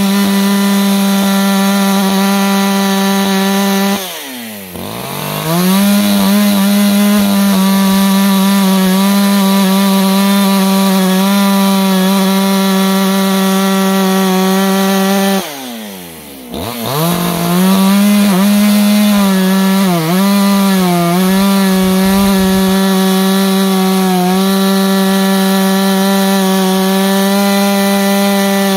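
Echo CS-620P two-stroke chainsaw running at high revs, cutting wood. Twice, about four seconds in and again about fifteen seconds in, the throttle is let off and the engine falls toward idle, then revs straight back up. There are brief small dips in pitch under load.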